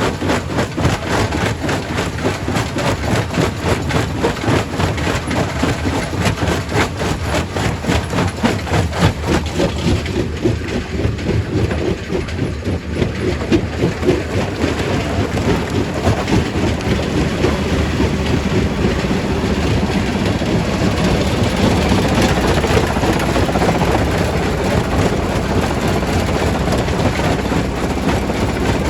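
Primary rock crusher working, a steady rumble under a dense, continuous clatter of stone knocking and breaking. The clatter thins a little about halfway through and the rumble evens out toward the end.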